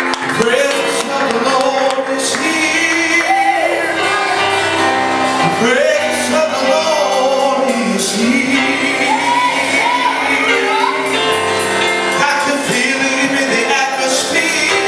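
Live gospel worship music: a band playing with voices singing over it, in a large hall.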